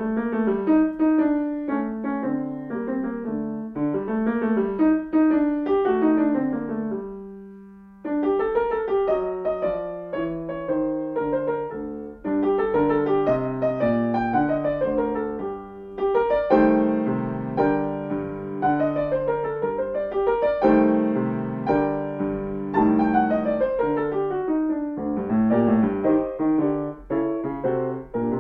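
Solo grand piano playing a lively scherzo with both hands. About seven seconds in, one held note dies away before the playing picks up again.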